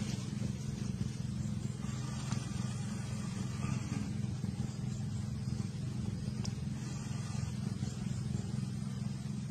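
Steady low motor hum at an even level, with no rise or fall in pitch.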